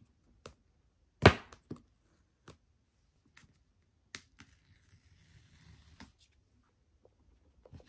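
Cardboard iPhone box being handled while its paper pull-tab strip is torn off: scattered sharp taps and clicks, the loudest about a second in, then a faint tearing rustle from about four to six seconds.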